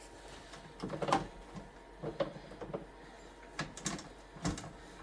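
A series of short knocks and clatters, about six of them at uneven intervals, the loudest about a second in.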